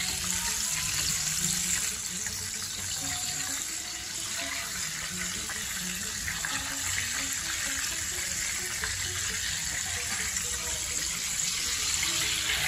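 Battered chicken pieces deep-frying in hot oil: a steady sizzling hiss with many small crackles.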